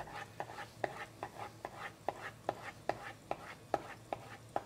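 Chef's knife slicing a red bell pepper into thin strips on a plastic cutting board, the blade knocking the board in a steady rhythm a little over twice a second.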